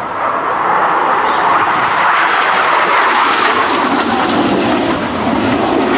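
A US Marine Corps AV-8B Harrier II's Rolls-Royce Pegasus turbofan jet engine passing close by: loud jet noise that swells over the first second, then drops lower in pitch after about three and a half seconds as the jet goes past.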